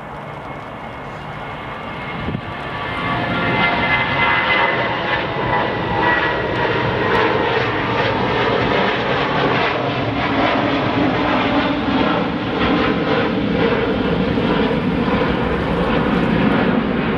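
Boeing 737-700's CFM56-7B turbofans at takeoff power as the jet climbs out and passes overhead: a loud jet roar that builds over the first few seconds and then holds. A high whine slides down in pitch as it goes by.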